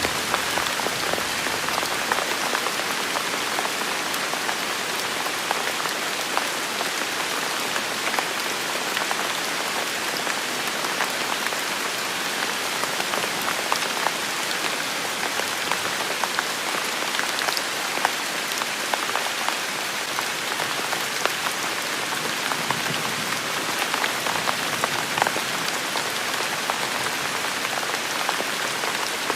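Steady rain falling: a continuous hiss with many scattered close drop ticks.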